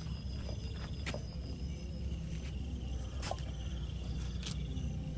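Crickets chirping in a thin high tone over a steady low hum, with three or four sharp clicks spread through it.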